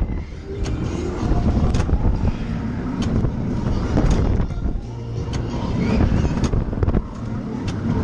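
Twister fairground ride spinning, heard from inside a moving car: a heavy, uneven low rumble of the ride in motion with scattered clicks and rattles.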